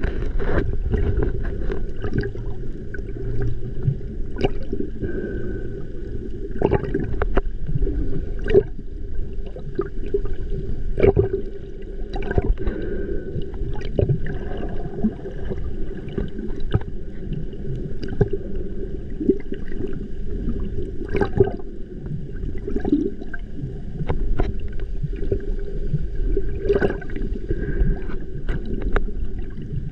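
Water heard underwater, through a snorkeler's camera: gurgling and sloshing with scattered sharp clicks over a steady low hum.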